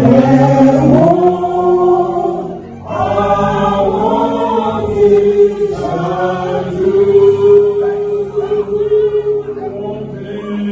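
A choir singing a church song together, with a short break in the singing about three seconds in.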